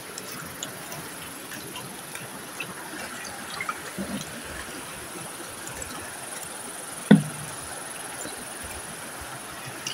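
Steady rush of flowing water, with a few small knocks and one louder thump about seven seconds in.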